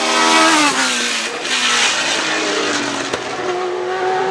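Historic Formula 1 race car engine passing at speed, its high-revving note dropping in pitch as it goes by, with another engine note rising and holding near the end. The recording is heavily volume-boosted.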